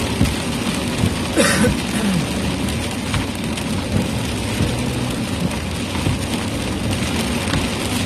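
Rain falling steadily on a moving car, a continuous hiss over a low rumble.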